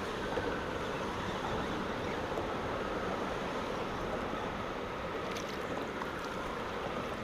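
Wind buffeting the microphone over choppy water slapping around a kayak, a steady rushing noise, with a few faint clicks about five seconds in.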